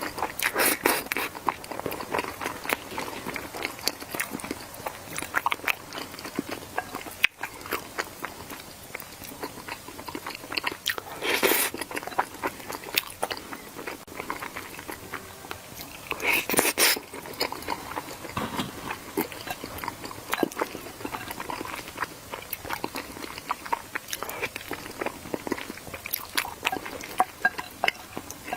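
Close-miked eating: a steady run of small biting and chewing clicks, with louder crunchy bites about 11 seconds in and again around 16 to 17 seconds.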